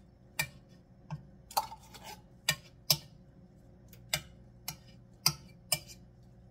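A metal spoon clinking and scraping inside a small tin can as tomato paste is scooped out into a pot: about nine sharp, irregularly spaced clicks.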